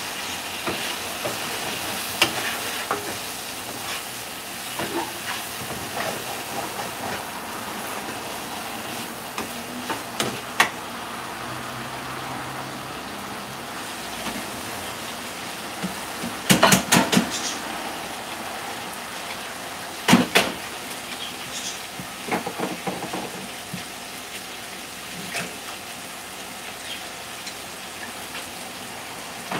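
Food sizzling steadily in a frying pan on a gas burner, with a spatula knocking and scraping in the pan early on. There are several sharp kitchen clatters, loudest about halfway through.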